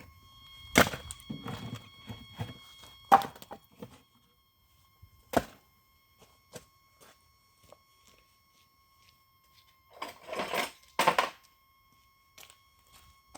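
Homemade log-splitter machine, driven by a 0.5 hp geared electric motor, crushing a beer can: sharp metallic knocks about one, three and five seconds in, then a crunching stretch near the end, over a faint steady whine.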